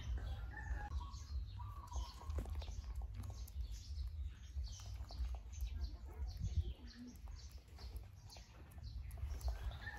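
A young macaque's fingers rustling and picking through a man's hair close to the microphone, as faint scratchy clicks. Small birds chirp briefly and often in the background over a steady low rumble.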